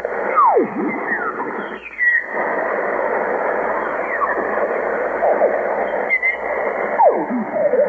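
Amateur radio receiver on the crowded 20-metre band: steady static hiss with garbled single-sideband voices sliding down and up in pitch into squawks as the tuning passes across them.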